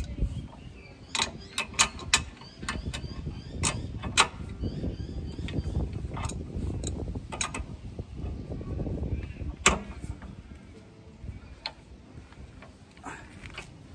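Steel spanners clinking on a nut as a tow coupling's mounting nut is tightened by hand: a dozen or so irregular metallic clicks, most in the first few seconds. A low rumble rises in the middle and fades away again.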